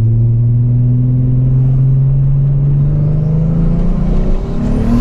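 Turbocharged VW VR6 engine pulling under acceleration, its revs climbing steadily for about three seconds before the pitch changes.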